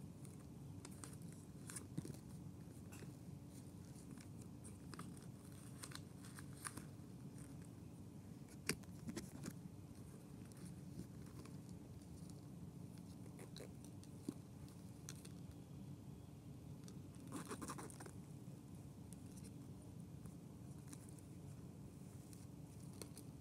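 Faint handling of small objects by hand: scattered light clicks and scrapes, with a brief rustle about seventeen seconds in, over a steady low room hum.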